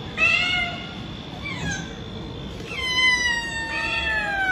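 A cat meowing. There is a short meow right at the start, then a long drawn-out meow from about three seconds in that slowly falls in pitch.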